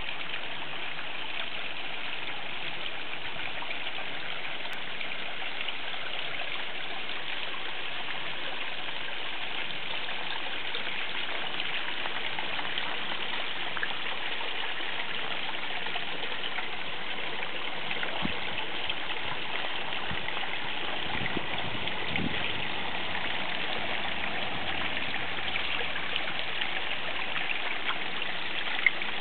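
Water trickling and splashing steadily down a garden pond's stacked-rock waterfall.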